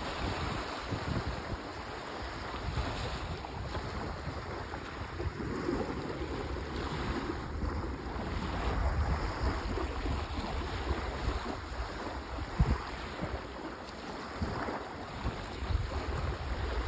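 Small sea waves washing and lapping at the shore, with wind buffeting the microphone in a low rumble and occasional gusts.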